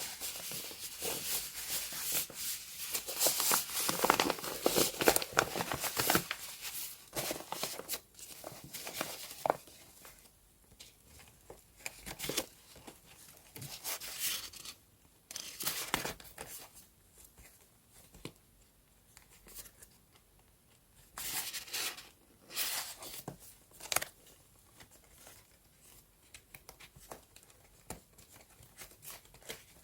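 Paper being handled close up: crinkling, rustling and tearing, dense for the first seven seconds or so, then in short bursts with quiet gaps between them.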